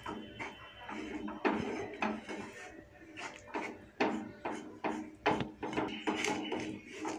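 Spatula stirring and scraping a thick besan-and-oil paste around a heavy pan, a fast irregular run of scrapes and soft knocks over a faint steady hum.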